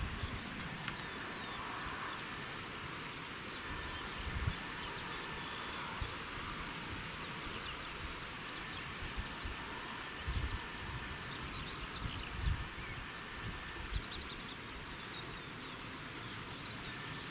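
Quiet outdoor ambience by a river: a steady hiss with faint, scattered bird chirps, and a few brief low thumps of wind or handling on the microphone.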